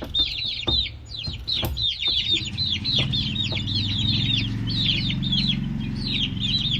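A group of chicks peeping continuously: quick, high, downward-sliding cheeps, several a second. A low steady hum joins from about halfway through.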